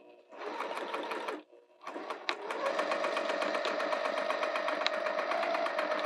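Domestic sewing machine stitching through a webbing strap: a short run of about a second, a brief stop, then steady stitching with a rapid, even needle beat.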